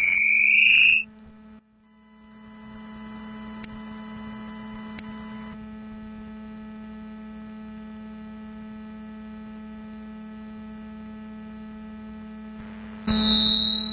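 Gliding synthesized tones, rendered from a drawing by Coagula image-to-sound software, cut off about a second and a half in, leaving a steady electrical hum with a few faint fixed tones. Near the end a new loud synthesized tone comes in abruptly.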